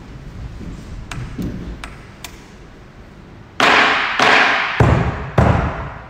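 A steady beat of four loud, sharp strikes about 0.6 s apart begins about three and a half seconds in, each ringing out in the large hall, after a few faint taps.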